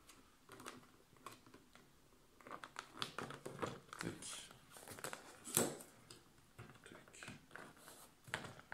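Handling noise of a petal being fitted onto a decorative windmill's hub: light rustling and crinkling of the flexible petal with many small clicks and taps, one sharper click a little past halfway.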